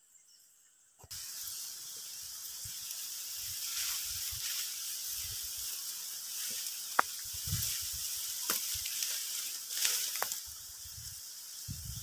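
Dry rice stalks and leaves rustling close against the microphone: a hiss that starts suddenly about a second in, with low wind buffets and a few sharp clicks.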